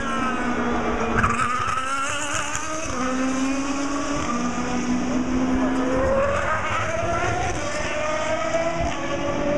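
Endurance race car engines coming off the throttle and changing down for a slow corner, then accelerating away with the engine note climbing through the gears.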